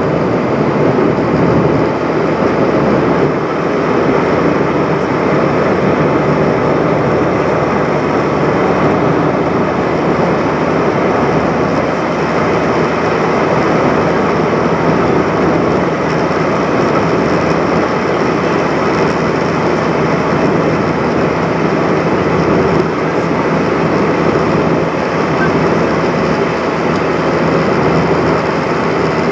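Steady, loud cabin noise inside an Airbus A320-232 in flight through cloud: its IAE V2500 turbofan engines and the rush of air past the fuselage. The noise is an even rushing sound with a faint hum underneath.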